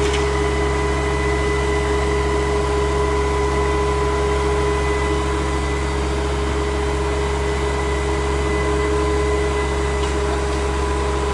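Truck-mounted concrete boom pump running steadily while its boom unfolds: a diesel engine's low drone with a steady whine over it.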